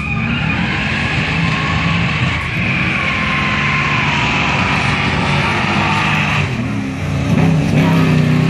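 Holden Commodore V8 engines running hard at high revs, loud and sustained, with a high steady whine over the engine note through the first part and the engines growing louder again after a short dip near the end.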